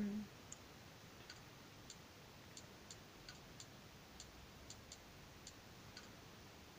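Faint, irregular clicks of typing on a device, about a dozen light taps roughly two a second.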